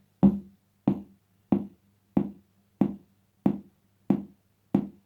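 Twin-T oscillator kick-drum circuit on a Science Fair 300-in-1 electronics kit, playing through a speaker: a steady beat of short, pitched electronic drum thumps, about one and a half a second, each dying away quickly.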